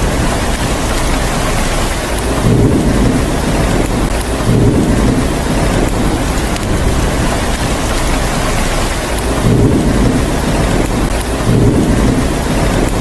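Steady heavy rain with low thunder rumbles swelling up four times.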